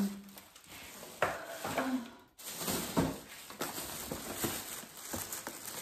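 Thin plastic shopping bag rustling and crinkling in irregular bursts as a hand rummages through the groceries inside it.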